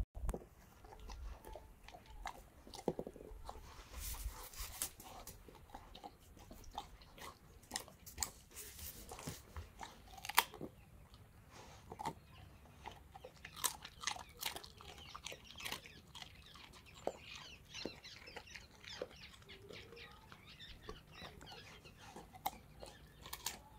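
A Belgian Malinois chewing raw carrot pieces: irregular crunches as its teeth bite through the carrot, one louder crunch about ten seconds in.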